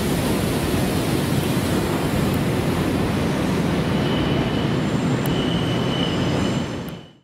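Steady rumble of electric trains at a station platform, with a faint high squeal of wheels on rail through the middle. The sound fades out just before the end.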